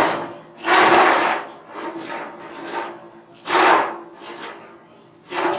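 Hand filing: a file scraping across a workpiece in separate back-and-forth strokes about a second apart, some heavy and some lighter, as the replacement hose nut is shaped.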